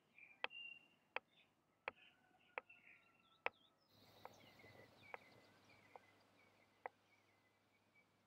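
Kitchen knife dicing cheese on a wooden chopping board: the blade strikes the board in sharp taps, a little more than one a second, with a few more spaced taps later. Faint birdsong behind.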